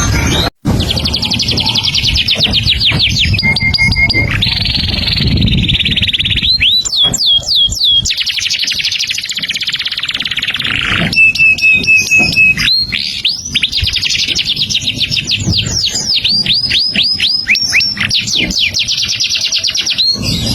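A songbird singing a long, unbroken song of fast trills, buzzy runs and rapid series of upward-sweeping whistles, with one short run of level notes near the middle. The sound cuts out for an instant about half a second in.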